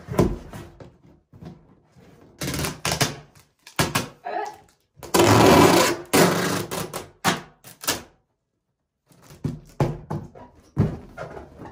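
Cardboard moving box being folded shut and sealed with packing tape: thumps and knocks of the cardboard flaps, a loud screech of tape pulled off the roll for about a second and a half midway, then more tape rasps and pats as it is pressed down.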